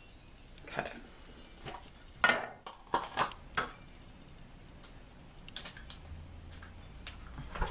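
A glass candle jar being handled on a table: a scattered string of short light clinks and knocks, the loudest a little over two seconds in.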